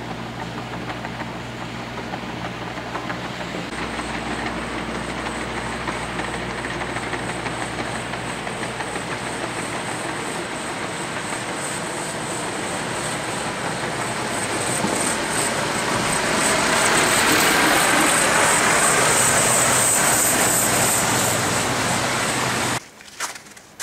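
Steady road traffic on a snowy street, a dense rushing of passing vehicles that grows louder in the second half and cuts off suddenly near the end.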